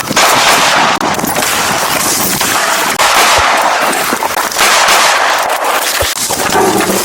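Rapid gunfire, shot after shot in a near-continuous volley, with a brief break about six seconds in.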